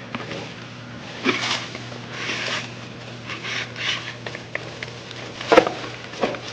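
Scattered handling noises of hand work: short scrapes, rustles and clicks, with one sharp click about five and a half seconds in, over a steady low hum.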